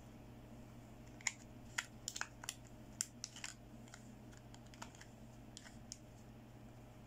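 Fingernails and fingertips clicking and tapping on a hard plastic toy makeup palette and its clear plastic lid: a quick run of sharp clicks, then a few lighter ticks.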